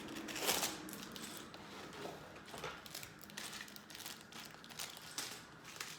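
Cardboard and plastic packaging of a LEGO advent calendar being handled: a door torn open and the small plastic bag of pieces crinkled, in a string of irregular rustles and crackles, the loudest about half a second in.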